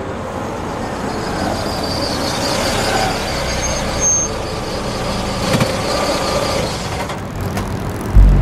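A Renault Kangoo van drives in and slows to a stop, its engine and tyres running steadily and growing louder as it nears, with a brief high squeak about halfway through. Near the end a loud low boom sets in suddenly.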